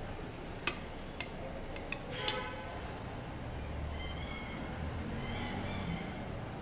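A table knife clicking against a ceramic plate as it cuts through a potato-and-egg pancake, four sharp clicks in the first two and a half seconds. High-pitched animal calls come in about two seconds in and again twice in the second half.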